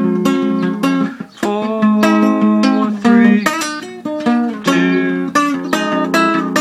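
Acoustic guitar played note by note, a minor arpeggio pattern picked out on the fretboard, with a brief drop in sound about a second in.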